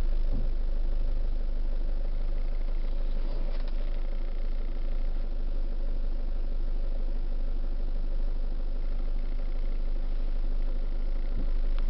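Nissan X-Trail's diesel engine idling steadily with a low, even hum. It cuts in and out abruptly.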